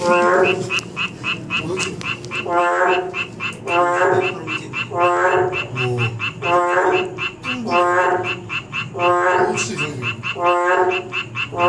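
Boreal digging frog (Kaloula borealis) calling close by: a loud, nasal, bleating croak repeated about eight times, roughly every 1.3 seconds. A fainter, higher ticking call repeats several times a second underneath.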